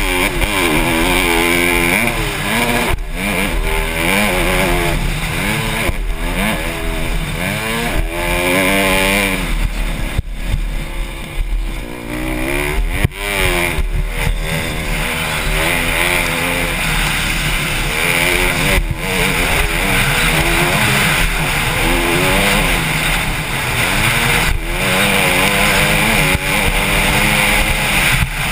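Honda CRF150R's four-stroke single-cylinder engine revving hard under race throttle, its pitch climbing in sweep after sweep as it shifts up, with a lull off the throttle about ten seconds in. There are a few sharp knocks along the way.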